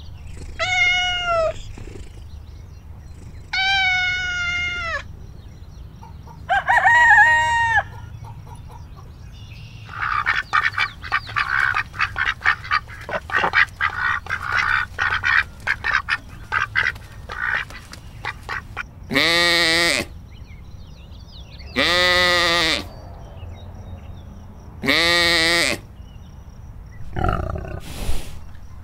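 Domestic fowl calling. Several separate drawn-out calls are followed by a stretch of rapid, short chattering calls in the middle, then three long calls a few seconds apart.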